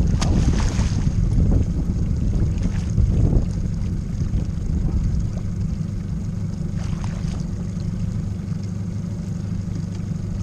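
Steady low wind rumble on the microphone aboard a small boat, with two brief splashes, about half a second in and again around seven seconds in, from a hooked bluefish at the surface beside the boat.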